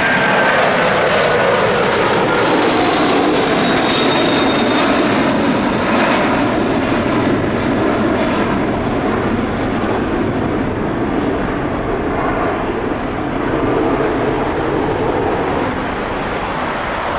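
Four Rolls-Royce RB211 jet engines of a Boeing 747-400 at climb power just after take-off: a steady, loud jet noise. A high whine fades in the first few seconds, and the sound grows duller as the airliner draws away.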